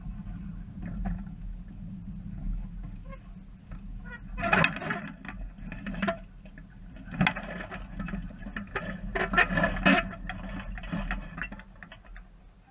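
Steady wind rumble on an action camera's microphone as a small sailboat moves across the water. From about four seconds in until near the end, water splashes and slaps against the hull in a string of short bursts.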